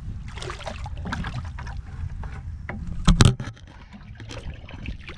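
Shallow creek water sloshing and splashing as a white plastic bucket is plunged and dragged through it to scoop up a crab, with one sharp, loud splash about three seconds in.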